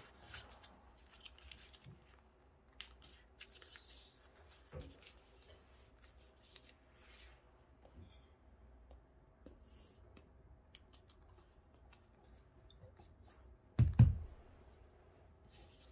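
Paper airplane being folded and creased by hand on a floor: faint, scattered paper rustles and scrapes as the folds are smoothed down, with one loud low thump near the end as a hand presses down on the plane.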